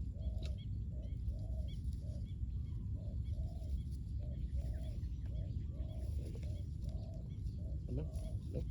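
Spotted dove cooing: a steady run of soft, arched low notes, roughly two a second, over a constant low rumble.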